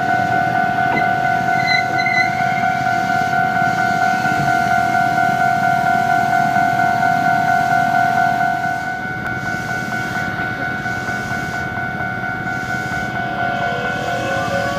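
Railway level crossing warning alarm ringing steadily in two tones. The lower tone stops about halfway through, and the sound of an approaching train comes in near the end.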